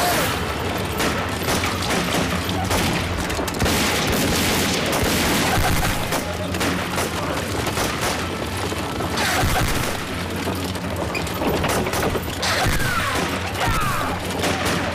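Battle sound effects: explosions and bursts of gunfire, dense and continuous, with men shouting here and there.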